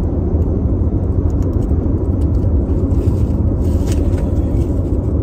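Steady low rumble of road and engine noise inside a moving car's cabin, with a faint click about four seconds in.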